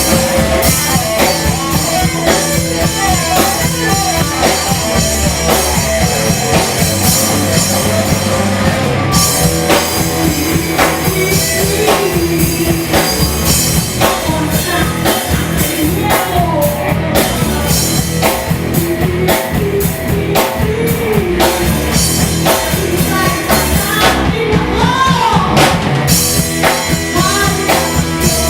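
A rock band playing live, with a steady drum kit beat and a wavering melodic line over it.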